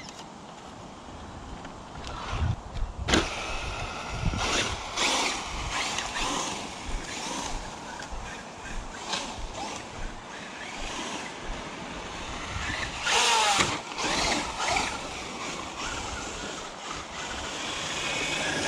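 Traxxas UDR radio-controlled truck driving, its electric brushless motor and drivetrain whining up and down in pitch as the throttle is worked, with tyre and dirt noise; the whine swells loudest about two thirds of the way through.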